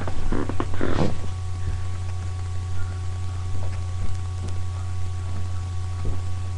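Steady low electrical hum with a few faint steady whining tones above it, and a brief rustle of movement about half a second to a second in.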